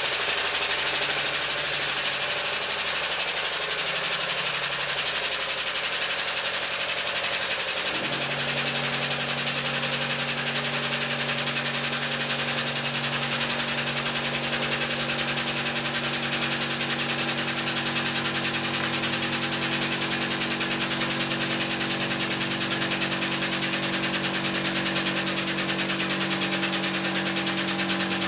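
A 50-ton hydraulic press runs steadily, with a dense, buzzing machine noise as its ram bears down on a butternut squash. About eight seconds in, the tone changes and a lower steady hum joins in and holds to the end.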